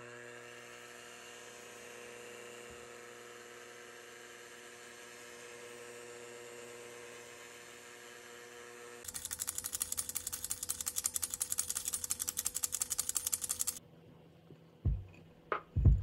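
Electric kitchen mixer running with a steady motor hum. About nine seconds in, a fast, even clatter of the beaters against the bowl starts, lasts about five seconds and stops abruptly. A few heavy thumps follow near the end.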